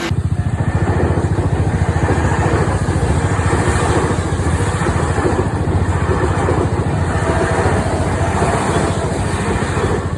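A loud vehicle running close by: a steady low rumble with rapid, even pulsing, starting suddenly.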